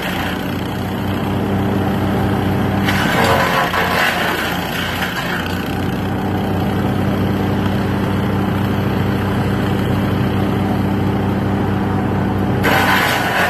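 Yardmax wood chipper's engine running steadily as pine branches are fed in. The branches are chewed up with a loud, coarse rush about three seconds in, lasting a couple of seconds, and again near the end.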